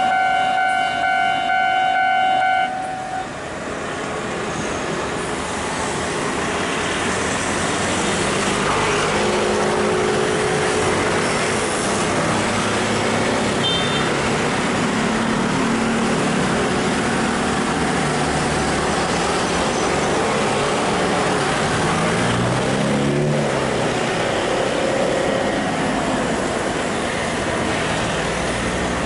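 Level-crossing warning bell ringing steadily, then cutting off about three seconds in. After it, steady road traffic noise: motor vehicles running past, one rising and falling in pitch as it goes by near the end.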